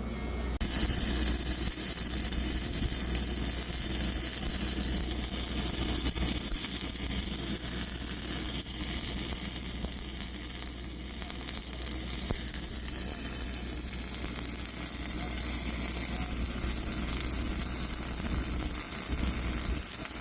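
Self-shielded flux-cored arc welding with E71T-8 wire, laying a fillet weld on half-inch carbon steel pipe: the arc gives a steady sizzle that starts about half a second in. A steady low hum runs underneath.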